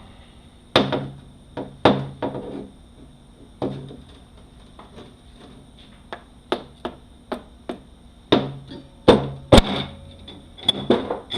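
Irregular sharp knocks and clunks of tools and metal transmission parts striking the workbench and each other during a 6L80E teardown, some ringing briefly, with the loudest few close together near the end.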